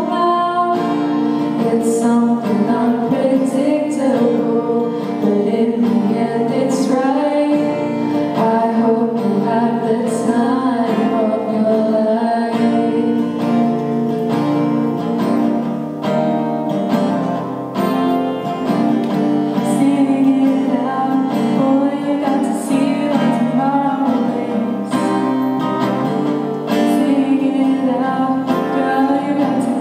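A song sung by a female voice with acoustic guitar accompaniment.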